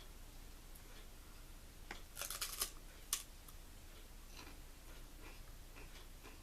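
Crisp crackling of potato chips, a short burst about two seconds in, with a few single sharp clicks around it.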